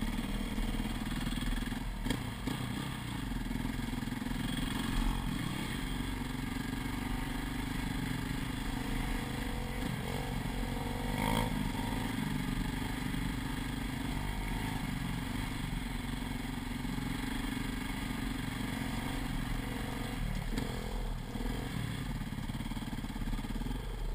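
KTM dirt bike engine running steadily at a moderate pace, its pitch wavering a little with the throttle, with occasional clattering knocks from the bike riding over a rough dirt track.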